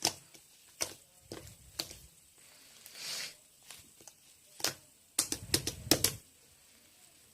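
Scattered sharp clicks and taps in a small room, with a short hiss about three seconds in and a quick flurry of clicks and thumps near the end.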